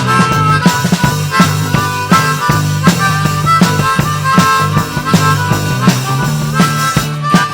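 Instrumental break of a country-style song: a harmonica melody over a bass line and a steady drum beat.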